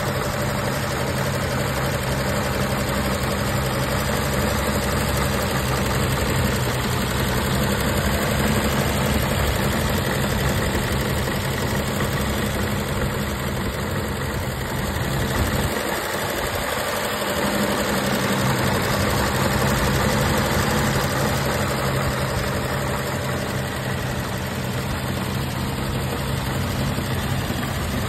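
1950 Chevrolet 3100 pickup's inline-six engine idling steadily, heard up close under the open hood.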